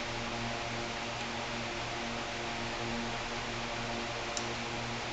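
Steady electrical hum with an even fan-like hiss. A single light click comes about four seconds in.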